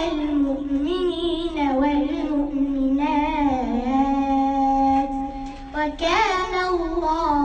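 A young girl reciting the Quran in melodic chant, her voice rising and falling in long drawn-out phrases with held notes. There is a brief pause for breath about six seconds in.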